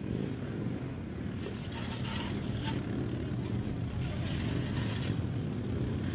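Several Harley-Davidson police motorcycles' V-twin engines running at low speed as they are ridden through tight turns, a steady low rumble.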